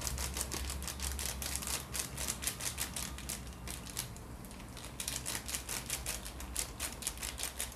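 Plastic packet of turmeric powder being shaken and tapped over a steel bowl: a fast run of small clicks, pausing briefly a little past halfway.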